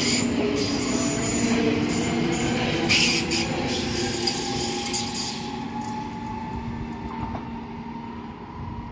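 A train running on the rails. Wheels click and clatter over the first three seconds under a steady hum and a slowly rising whine, and the whole sound gradually fades.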